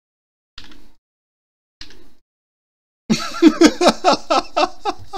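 Dog whining in a quick series of loud, wavering whimpers, about four a second, starting about three seconds in, after two short soft sounds. It is a sign of distress: the dog is upset.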